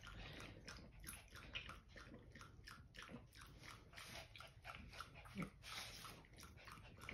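Small dog lapping water from a bowl in quick, regular laps, several a second, faint throughout, with one louder, short low sound about five seconds in.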